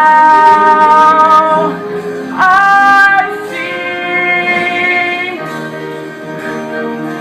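The end of a sung ballad. A voice holds the final long note over plucked guitar accompaniment and cuts off after about a second and a half. A short, loud note follows about a second later, then the accompaniment plays on more quietly.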